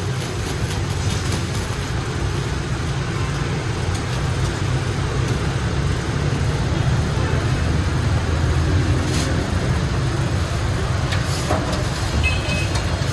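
Steady low background rumble, with a few light clicks and knocks in the second half.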